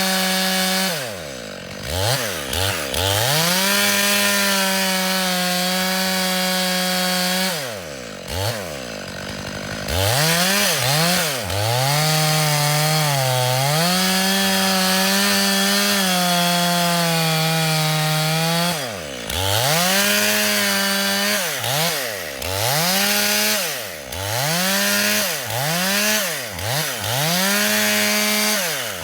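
Two-stroke petrol chainsaw running at full throttle as it saws through thick wood, its engine note sagging a little under load. The throttle is let off and opened again several times, with a run of quick revs near the end.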